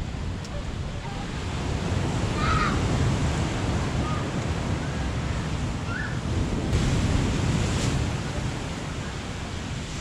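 Heavy wind gusting over the microphone with the steady rush of surf, swelling twice.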